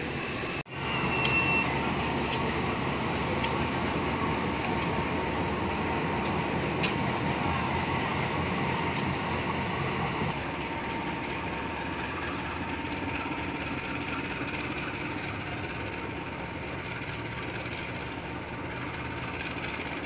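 CC201 diesel-electric locomotive running light as it shunts along the station tracks, a steady engine sound with a few sharp clicks, growing quieter after about ten seconds as it moves away.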